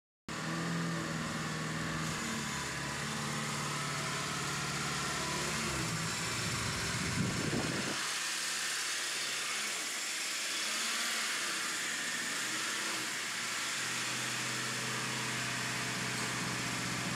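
Toyota Celica's engine running at idle, steady, its pitch swelling briefly about six seconds in.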